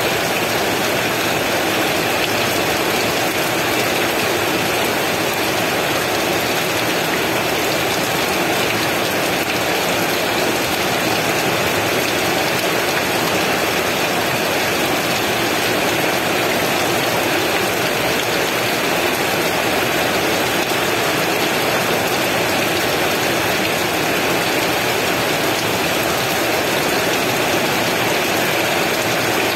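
Steady heavy rain, an even hiss of falling water with no let-up or thunder.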